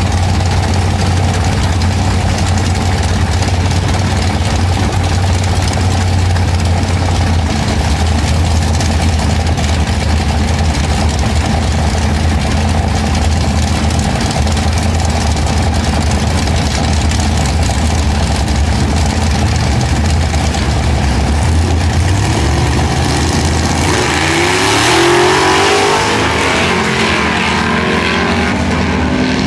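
Drag racing engines of a Camaro and a vintage pickup truck idling at the start line with a steady low hum. About 24 seconds in they launch: the engines rev hard, their pitch climbing and dropping as they pull away down the strip.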